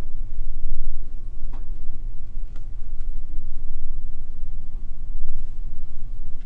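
Steady low background rumble with a few faint clicks scattered through it.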